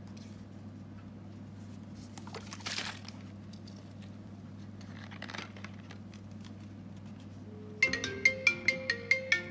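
Quiet handling of plastic soda bottles with a short hiss about two and a half seconds in, then, about eight seconds in, an iPhone 8 starts ringing with an incoming call: a loud marimba-like ringtone of quick notes, about five a second.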